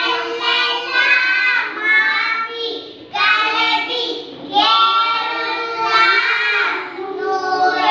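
A small group of young girls singing together with no instruments, in phrases broken by short breaths.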